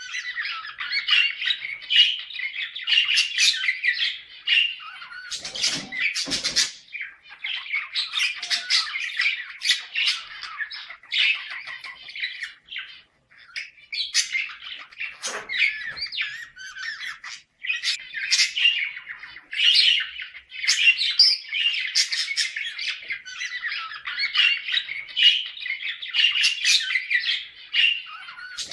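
Budgerigars chattering and warbling almost without pause, a rapid mix of chirps and squawks, the pair chatter played to bring budgies into breeding condition. A couple of louder, sharper sounds stand out about six seconds in and again about fifteen seconds in.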